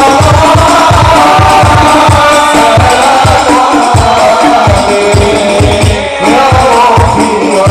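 Devotional song sung to a steady beat of frame drums (rebana), about three strokes a second, played loud through large PA loudspeakers.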